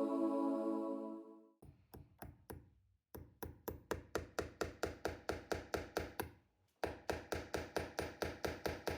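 Soft ambient music fades out in the first second and a half. Then a hammer taps golden decorative upholstery nails into a chair's cover, in quick runs of light strikes about four a second with two short pauses.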